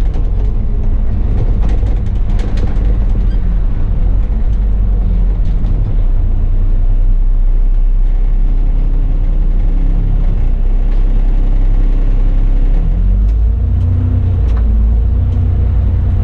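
Bus engine and drivetrain running on the move, a steady low rumble whose pitch shifts up and down, with a few light knocks and rattles. About three seconds before the end the rumble grows louder and the engine note rises as the bus accelerates.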